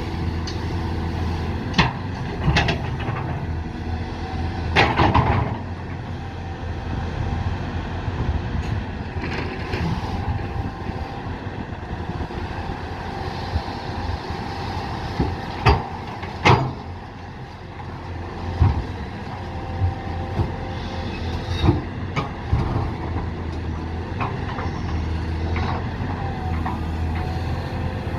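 A heavy diesel engine runs steadily throughout, with a few sharp knocks and a brief louder burst of noise about five seconds in.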